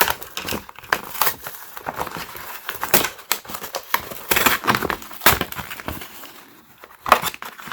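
Hands handling a 13-in-1 multi-tool hammer and its packaging: irregular crinkling with small clicks and knocks.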